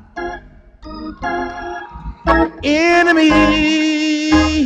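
Gospel music: an organ plays short chords, then from about halfway a man's voice holds one long sung note over the organ.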